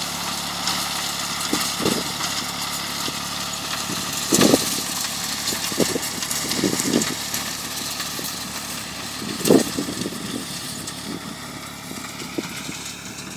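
Ford 4000 tractor engine running steadily as it pulls a hay rake, with several brief low thumps, two of them louder, about four and nine seconds in. The engine grows fainter near the end.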